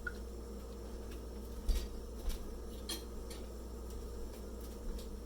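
Kitchen knife cutting potatoes on a cutting board: a few scattered clicks and taps, heard over a steady low hum.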